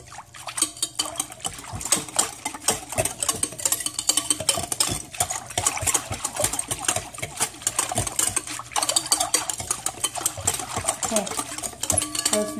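Dense, irregular scraping and clicking as crab paste is worked through a kitchen strainer to hold back the crab shells.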